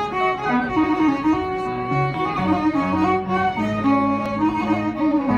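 Instrumental introduction to an Ethiopian Orthodox hymn: a bowed-string melody moving in held notes over sustained lower notes.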